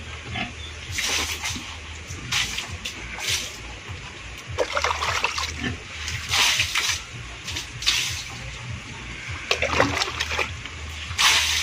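Water poured from a plastic dipper (tabo) splashing into a concrete pig pen, in repeated pours one every second or two.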